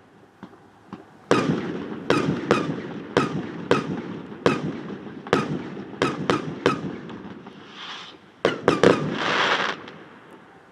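Aerial fireworks going off in a rapid series of sharp bangs, about two a second, each echoing off a nearby metal hangar, which gives them an odd, ringing tail. A short hissing crackle comes near the end.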